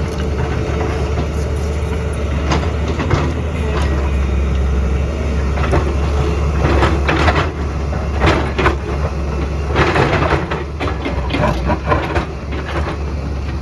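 Excavator's diesel engine running steadily under load, with several bursts of rock and soil clattering and scraping from about seven seconds in.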